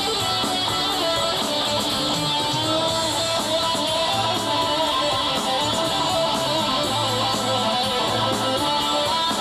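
Live rock band playing an instrumental passage: an electric guitar carries a sliding melody over bass guitar and drums with steady cymbals.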